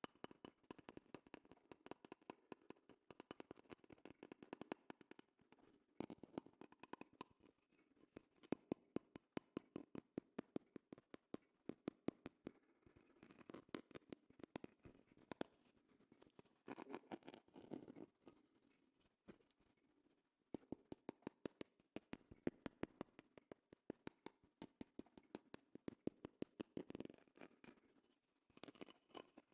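Rapid close-miked tapping and scratching on a shell, in quick irregular runs of sharp clicks with brief pauses.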